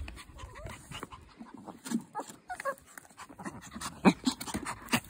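Small dogs panting and snuffling right at the microphone, with brushing and knocking noises as they push against the phone; the loudest knock comes about four seconds in.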